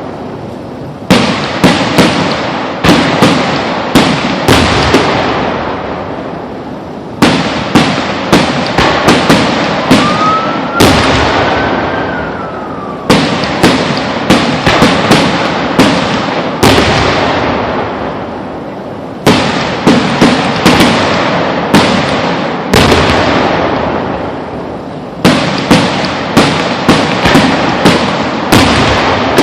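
Fireworks display heard up close: clusters of sharp bangs in quick succession every few seconds, each rumbling away afterwards. About ten seconds in, a whistle rises and then falls.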